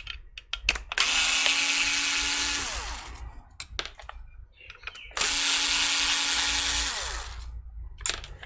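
Electric screwdriver run twice, each time for about two seconds with a steady whirr that winds down as it stops, with small clicks of screws and metal between the runs.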